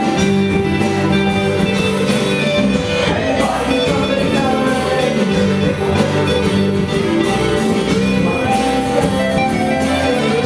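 Live band playing: electric and acoustic guitars over a drum kit with a steady beat, and a woman singing into a microphone.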